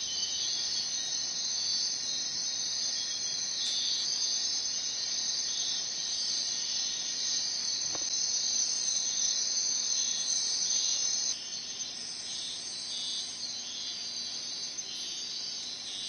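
Night-time rainforest insect chorus of crickets, a dense, steady high-pitched shrilling that drops a little in level about two-thirds of the way through.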